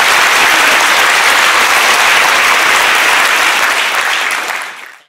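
Audience applause, many people clapping steadily, fading out near the end.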